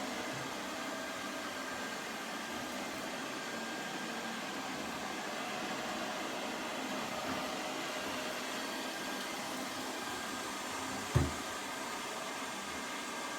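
Lefant M210 Pro robot vacuum running steadily on its suction, with one short thump about eleven seconds in.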